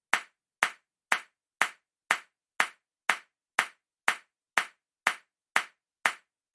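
Slow, evenly spaced single claps, about two a second and about thirteen in all.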